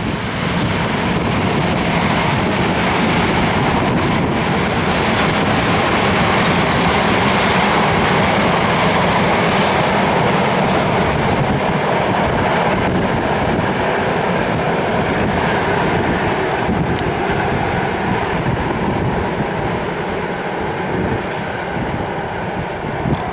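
Freight train of container flat wagons rolling past on the rails, a steady dense rumble that is loudest about eight seconds in and slowly fades after the middle.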